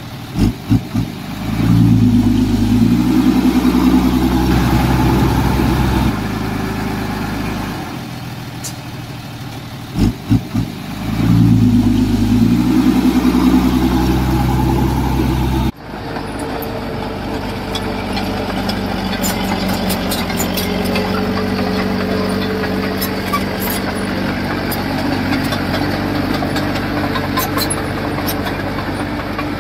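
Diesel engine of heavy construction machinery. Twice, three short loud blips are followed by several seconds of the engine running hard before it eases back. About halfway through the sound cuts to a different engine running steadily.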